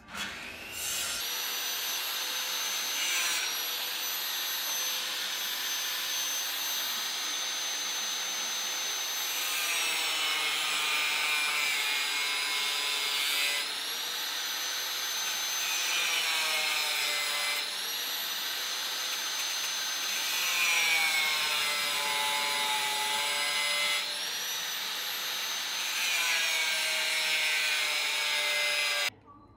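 Makita angle grinder with a cut-off disc cutting into a steel plate. Its high motor whine sags in pitch several times as the disc bites into the cut and recovers as the load eases. It starts about a second in and cuts off abruptly near the end.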